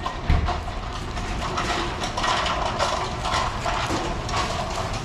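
Knife slicing the skin off a pineapple held in a plastic bag, over steady background noise, with a low thump about a third of a second in.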